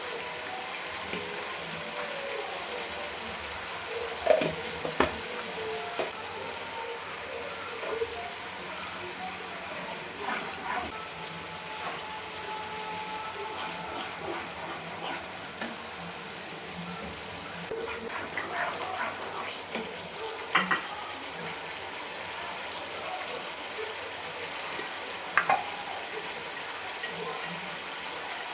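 Food sizzling steadily in a hot pan, with a few sharp clinks and scrapes of a spoon against the pan scattered through, the loudest around four to five seconds in, twenty seconds in and twenty-five seconds in.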